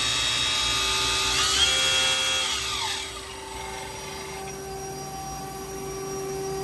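Nakamura-Tome WT-100 CNC lathe spindle running at speed with a high, many-toned whine, stepping up in pitch about one and a half seconds in, then spinning down with a falling whine around three seconds in. A steadier, quieter hum of the machine's drives and pumps remains.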